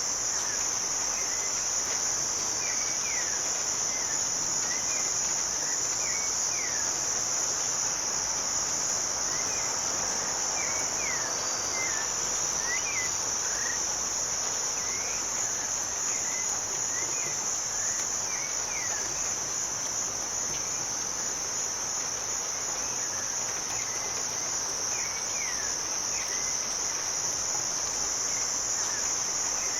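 A high, steady insect chorus over an even hiss of rain, with short bird chirps scattered throughout.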